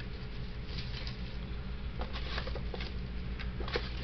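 Crinkling and clicking of fireworks and their packaging being handled and moved about, in three short clusters, over a steady low hum.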